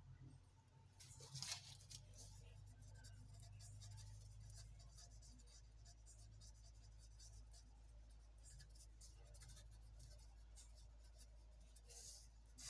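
Pen writing on notebook paper: faint, irregular scratching strokes as a heading is written out.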